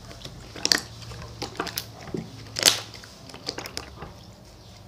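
Slime being slapped and squeezed by hand on a wooden tabletop, giving an irregular run of sharp wet pops and clicks, the loudest just under three seconds in.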